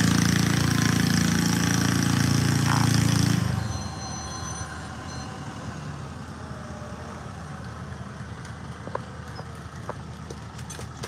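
Lawn-tractor pulling mower's engine running hard under load as it drags a weight sled, its engine sound dropping away sharply about three and a half seconds in as the pull ends; after that only a low background with a few faint clicks.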